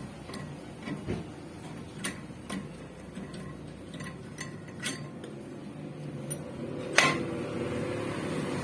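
Metal tools and engine parts clinking and tapping against each other during hand work on a small diesel engine, with one louder metallic knock about seven seconds in.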